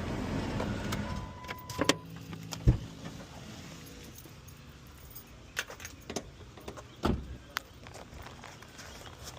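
Car engine running, then cutting off about a second in. A short steady beep follows, then scattered knocks and clinks like keys and car doors, the loudest a thump near three seconds.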